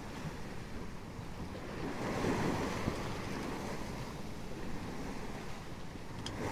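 Beneteau Idylle 13.50 sailing yacht's hull rushing through choppy sea under sail, the bow wave and spray hissing along its side, with wind buffeting the microphone. The wash swells about two seconds in.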